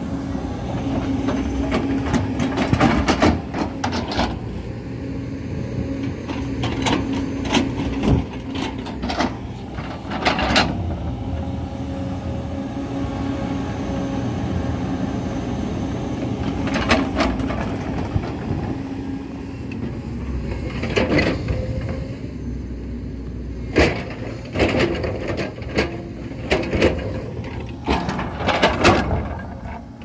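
JCB tracked excavator's diesel engine running steadily under load while its toothed bucket digs and scrapes into packed soil and stone. Repeated sharp scrapes and knocks of the bucket teeth and falling rocks come at irregular intervals, most often near the end.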